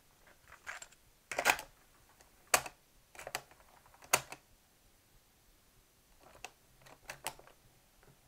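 Plastic and metal clicks and clacks of a 1970 Sony TC-120 cassette recorder as a cassette is loaded into it and its cassette door and piano-key controls are handled. A cluster of clicks comes about a second and a half in, then sharp single clacks at about two and a half and four seconds, and a few lighter clicks near the end.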